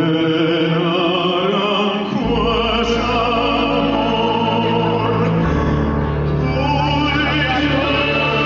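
Male pop-opera singer singing a ballad with vibrato into a microphone, amplified live and backed by the band; the low bass notes change about two and five and a half seconds in.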